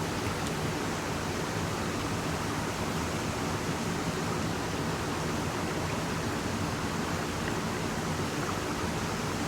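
Steady, even rush of a river and its waterfalls.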